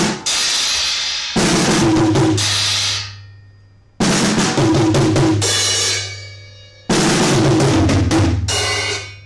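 Pearl drum kit played in short loud phrases of bass drum, snare and cymbals, each phrase stopping on a cymbal that rings and fades before the next starts, about every three seconds. This is a demo of a newly unboxed Paiste PSTX Swiss cymbal, a trashy effects cymbal, within the kit.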